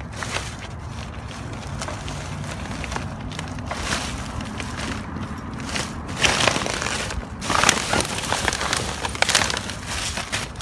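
Plastic garbage bags rustling and crinkling as a gloved hand digs through them, louder in bursts from about six seconds in.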